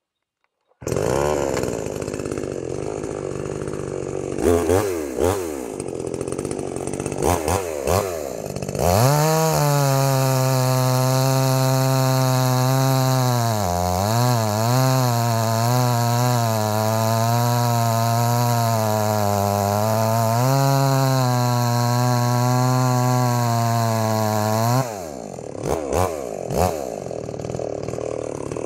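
MTM 62 SX two-stroke chainsaw cutting into a log. It comes in about a second in at idle with a few quick blips of throttle, then runs at full throttle for about fifteen seconds, the pitch sagging briefly as the chain bites into the wood. Near the end it drops back to idle with short revs.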